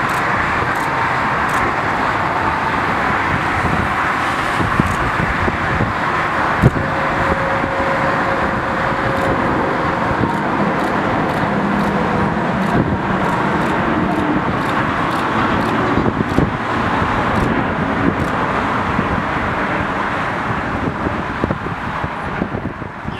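Airbus A380's four Rolls-Royce Trent 900 jet engines at takeoff thrust as the airliner climbs out: a loud, steady rumble with a few short knocks, fading near the end.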